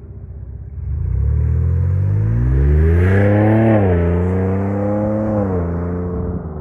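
Ford Bronco's 2.7-litre twin-turbo V6 accelerating away through a Magnaflow Overland exhaust with the muffler's second outlet uncapped, its loudest setting. The engine note rises in pitch for about three seconds, drops sharply at an upshift, then pulls on steadily.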